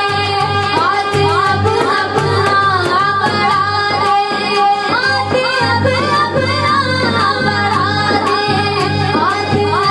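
A woman singing an Urdu naat in a melodic, gliding voice over a steady low hum, with a light regular ticking beat.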